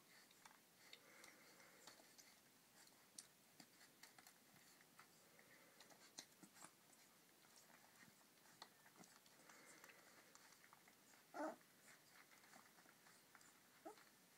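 Borzoi puppies nursing: faint suckling and smacking clicks throughout, with a short puppy squeak about eleven seconds in and a fainter one near the end.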